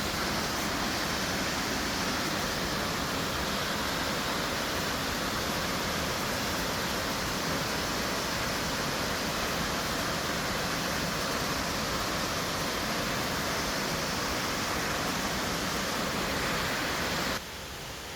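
Waterfall: the steady rush of heavy falling water, an even noise without letup, which drops away suddenly near the end.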